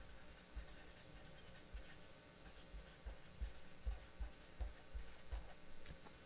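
Faint scratching of a felt-tip marker writing on paper, stroke by stroke, with scattered soft low thumps.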